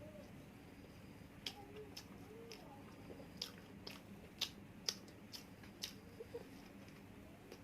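A person chewing and biting food, with a run of short, sharp crunchy clicks starting about a second and a half in and ending a little after six seconds, loudest near the middle.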